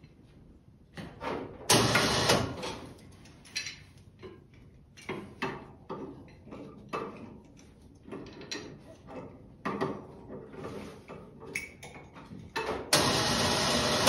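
Snowplow mounting hardware being handled: irregular clanks, knocks and rattles of steel parts and hooks. Two louder stretches of scraping noise come about two seconds in and near the end.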